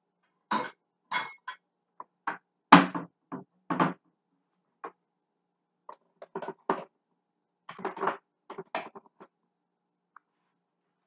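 Scattered knocks and clatters of dishes and cupboard doors being handled in a kitchen, about a dozen short sharp sounds at uneven intervals, the loudest about three seconds in.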